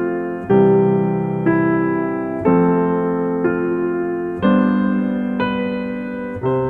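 Background music played on a piano-like keyboard: slow, gently struck chords that fade after each strike, a new note or chord about once a second.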